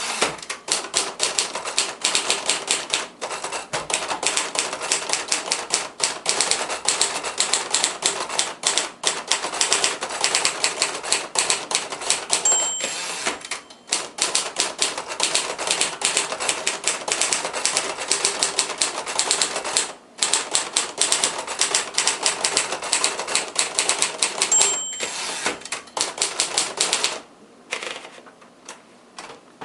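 1958 Royal Aristocrat portable manual typewriter being typed on: a fast, steady run of key strikes with short pauses, and the margin bell ringing briefly twice, near 13 and 25 seconds in. The typing stops a couple of seconds before the end.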